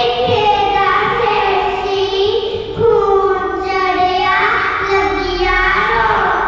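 Boys singing a Punjabi Sikh devotional verse into a microphone, in long drawn-out notes that slide up and down in pitch.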